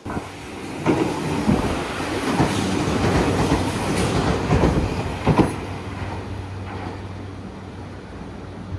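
Tobu Railway electric train running past, its wheels clacking over rail joints, loudest through the first half and then easing to a steadier rumble with a low hum.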